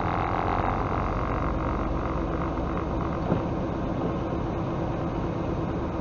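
Steady running noise of a semi truck's diesel engine and tyres on a wet, snowy highway, heard inside the cab. There is one sharp click about three seconds in.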